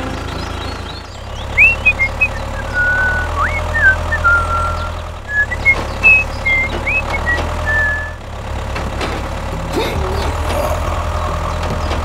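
A low, steady tractor-type engine running at idle, with its level shifting at a few points. Short high chirping whistles come over it between about a second and a half and eight seconds in.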